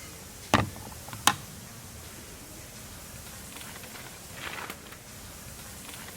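Two sharp knocks about three quarters of a second apart, then a short rustle, over a steady hiss of background noise.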